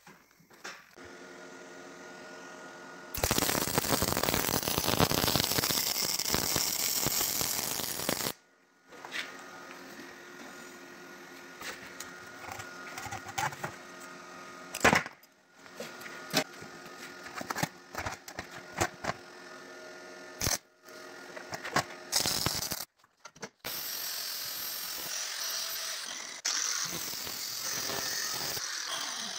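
Handheld angle grinder with a cut-off disc cutting steel in two long loud spells. Between them the tool hums steadily, with sharp metal clicks and knocks.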